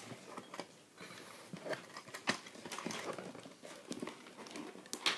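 Hands handling a plastic toy playset and its cardboard-and-plastic packaging: irregular light clicks, taps and rustles, with a sharper click about two seconds in and another near the end.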